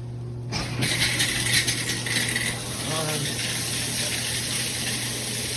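Shower water comes on about half a second in: a steady hiss of spray from a FASTRAS LED handheld shower head, with heavier splashing over the first couple of seconds.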